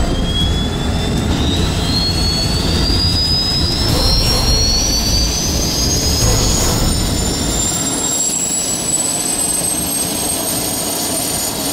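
GE turboprop engine of a Beechcraft King Air 90 starting up: a turbine whine climbs steadily in pitch as the engine spools up and the propeller begins to turn. A low rumble under it fades out about eight seconds in.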